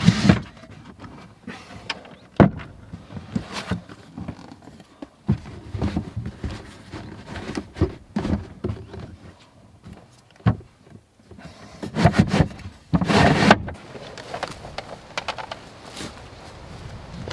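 Wooden knocks and thumps with upholstery rustling as a camper's fold-out plywood bed boards and seat cushions are packed away. About twelve seconds in comes a couple of seconds of rubbing and sliding.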